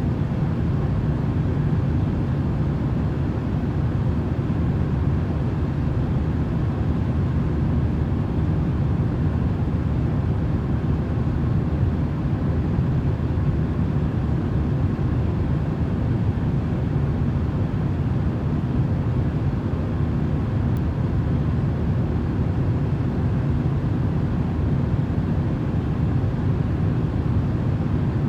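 Steady, unbroken rumbling noise, heaviest in the low pitches and thinning out toward the top, played as a sleep noise track; its level and tone stay the same throughout.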